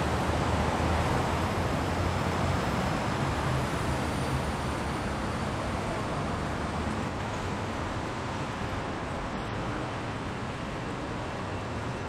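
Steady rumble of city traffic, slowly growing fainter.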